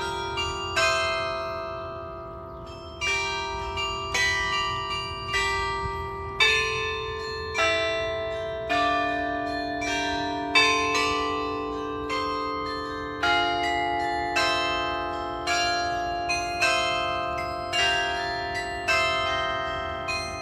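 The New Ulm Glockenspiel's tower bells playing a slow melody. A bell is struck roughly once a second and each note rings on under the next.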